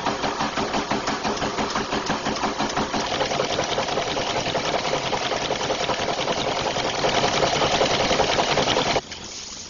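Fast, even mechanical clatter of a high-speed blanking press punching coin blanks out of metal strip. It cuts off abruptly near the end.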